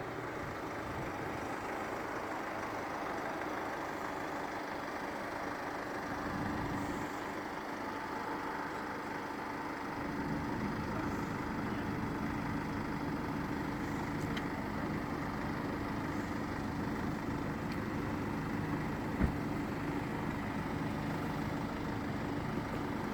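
A vehicle engine idling steadily, stepping up a little in level about ten seconds in, with one short knock near the end.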